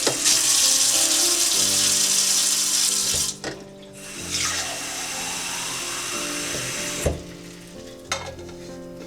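Tap water running into a kitchen sink in two spells of about three seconds each, with a short break between them. The second spell ends in a sharp knock.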